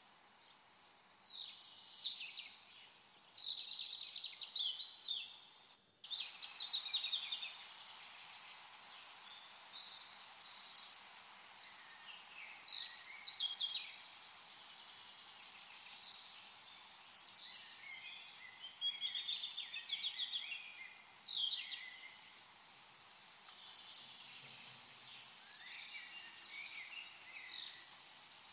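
Small songbirds chirping: clusters of quick, downward-sweeping chirps that come and go over a steady background hiss, briefly cutting out about six seconds in.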